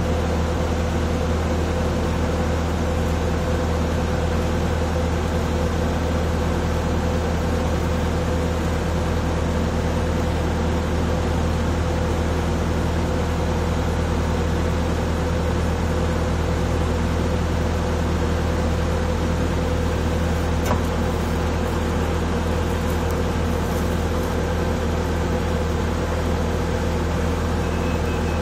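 Bobcat A300 skid-steer loader's diesel engine running steadily, powering a hydraulic auger drive that screws a steel screw pile into the ground. A constant, even drone with no change in pitch.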